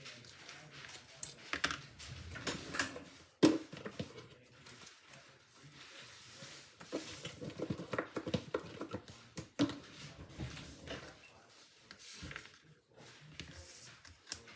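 Paper and cardstock being handled by hand: irregular light clicks, taps and rustles, with a sharper tap about three and a half seconds in and another near the ten-second mark.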